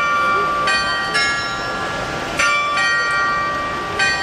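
Bells of the Fortnum & Mason clock playing a tune: about five struck notes at uneven intervals, each ringing on into the next, over a steady hiss of street noise.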